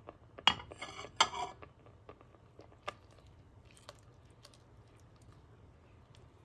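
Silicone spatula knocking and scraping against a steel pan while stirring thick milk-and-chhena pudding: two sharp knocks in the first second and a half, then faint scattered ticks.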